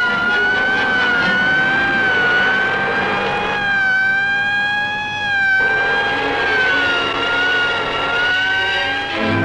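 Police car siren sounding a steady high wail that wavers gently in pitch, over the engine and road noise of the pursuing car.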